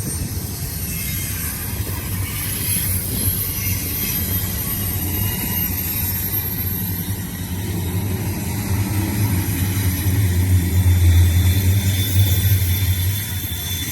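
Intermodal freight train's cars rolling past, a steady low rumble with rail and wheel noise that grows louder about eight to twelve seconds in.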